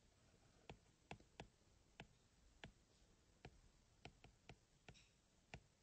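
Faint, irregular clicks of a stylus tapping on a tablet's writing surface as words are handwritten, about a dozen over a few seconds against near silence.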